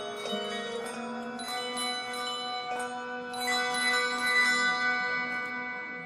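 Many handbells ringing together: overlapping struck notes that sustain and blend. A louder cluster of higher notes comes in about three and a half seconds in.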